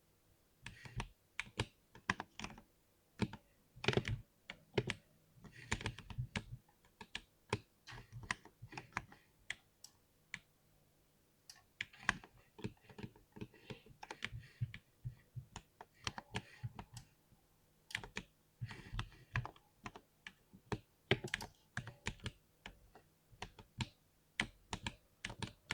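Typing on a 60% mechanical keyboard: irregular flurries of keystrokes with a dull, soggy-sponge sound, pausing briefly about ten seconds in.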